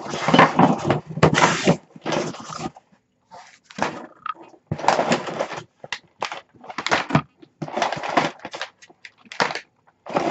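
Cardboard shipping box being pulled open and crumpled packing paper rustled as it is lifted out: a string of irregular tearing and crinkling noises with short pauses between them.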